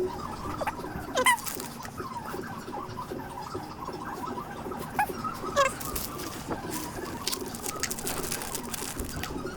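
Light clicks and taps of engine parts being handled on the bench, with a few short, squeaky chirps that fall in pitch, one about a second in and one past the middle.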